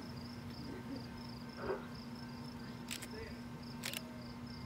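Faint outdoor ambience with a high insect chirp repeating about three to four times a second over a steady low hum. A brief knock comes about a second and a half in, and two sharp clicks follow later.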